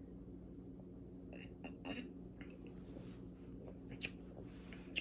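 A person sipping and swallowing soda, with soft gulps and mouth clicks: a cluster of them about one and a half to two seconds in, another near four seconds and one more near the end.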